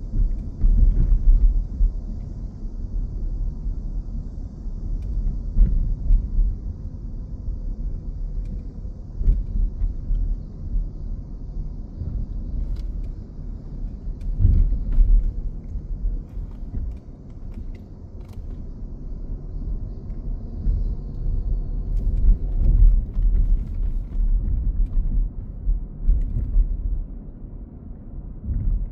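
Low, uneven rumble that swells and fades every few seconds, with a few faint clicks.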